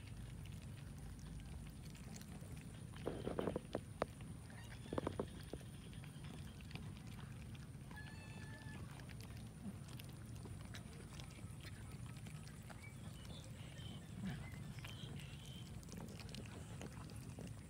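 A crowd of cats eating cooked rice off a wooden board: many small scattered chewing and licking clicks over a steady low rumble, with brief louder noises about three and five seconds in.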